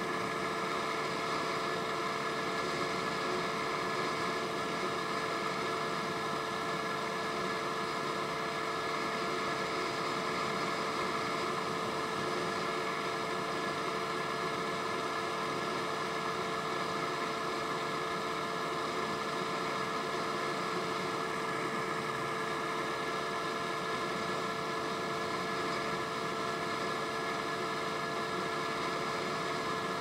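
Honda Ruckus scooter running at a steady cruising speed: an even engine and drivetrain hum that never changes pitch, over a steady rushing noise.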